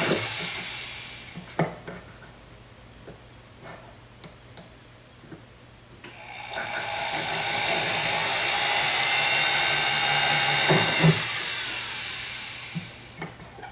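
Small jeweller's drill boring a 1 mm hole through a sterling silver cuff: a run is winding down in the first second or so, then after a few light clicks the drill spins up about six and a half seconds in, cuts steadily for about six seconds and winds down.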